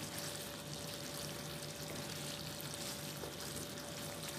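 Creamy white chicken curry sizzling steadily in the pan as it is stirred with a wooden spatula. A faint steady hum sounds underneath.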